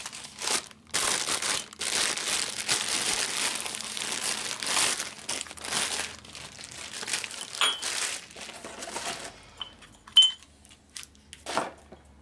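Clear plastic bag crinkling as a new cast piston is unwrapped from it, then a few light taps near the end, one of them sharp.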